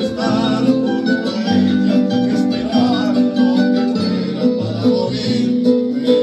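Acoustic guitar music playing steadily: an instrumental passage of a serenade ballad, with no words sung.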